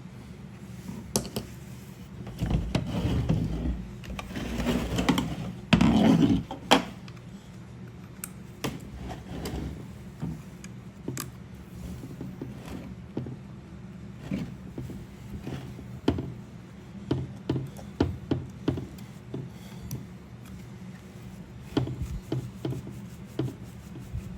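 Clicks, knocks and rattles of tools and parts being handled while a Stihl 020 chainsaw is taken apart, over a steady low hum. There is a louder, noisier stretch of handling from about two and a half to six and a half seconds in.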